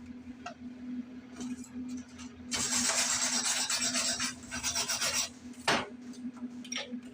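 Harsh rasping scrape of a tool on metal for about three seconds in the middle, over a steady low hum, followed by a single sharp knock.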